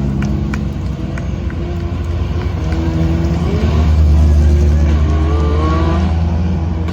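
Hill-climb race car engine running hard under acceleration, its pitch climbing and its loudness building to a peak about four seconds in, then easing slightly.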